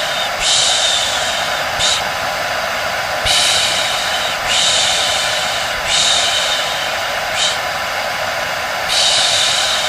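Rhythmic shushing, repeated "shh" hisses about every second and a half, some long and some short, over the steady hum and rush of a running hair dryer. This is the white-noise mix used to soothe a baby to sleep.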